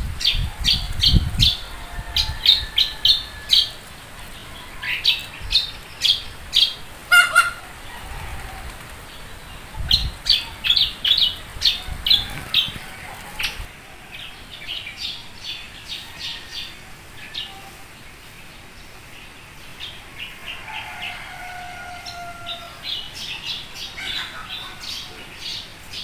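Birds calling in rapid bursts of short, high chirps, each burst a run of several quick notes, coming again and again a few seconds apart. Low thumps on the microphone in the first couple of seconds and again around the tenth.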